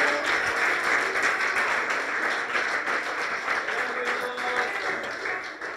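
Congregation clapping and calling out in praise, a dense patter of applause with scattered voices that tapers off near the end.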